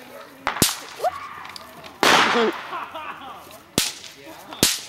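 Small fireworks going off: a quick pair of sharp cracks about half a second in, a louder noisy burst about two seconds in, then two more single cracks near the end.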